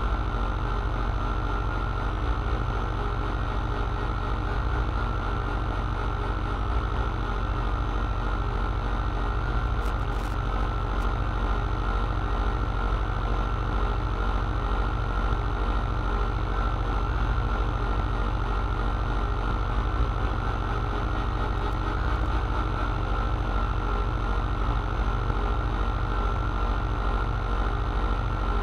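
Live electronic music from a patch-cable modular synthesizer: a dense, steady low drone with a sustained higher tone over it, the texture holding almost unchanged.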